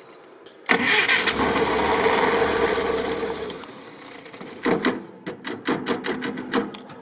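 Jeep Willys engine being started: it bursts into sound about a second in, runs for about three seconds and fades away, then a run of sharp pulses, roughly four a second, follows.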